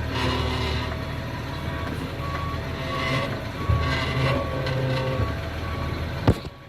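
Idling Caterpillar C7 inline-six diesel of a school bus, a steady low rumble, under a repeating electronic beep, about one short beep every two-thirds of a second, like a reversing alarm. A sharp click near the end.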